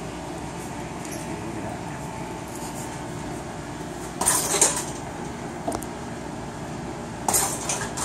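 Gloved fists striking a chain-hung heavy punching bag in two quick bursts of punches, about four seconds in and again near the end, with metallic jangling from the bag's chain. A steady hum runs underneath.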